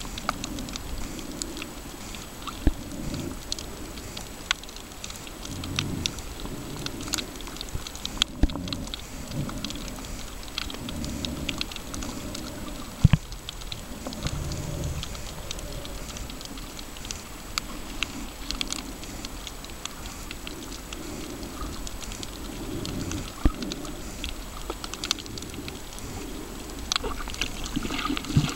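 Underwater sound on a coral reef, heard through a snorkeler's camera: a scattered crackle of sharp clicks over low, uneven surges of moving water every few seconds.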